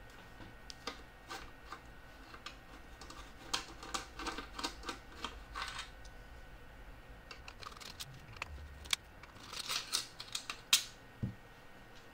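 Screwdriver backing small screws out of the ReVox A77 MKIV tape recorder's metal board cover: light irregular clicks and ticks of metal on metal. They come in two flurries, a few seconds in and again near the end, and the sharpest click comes in the second.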